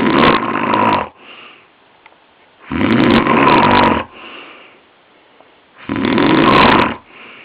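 A man snoring heavily in his sleep: three loud snores about three seconds apart, the first already under way, each followed by a brief quieter sound. The snoring is that of a man with chronic sleep apnoea.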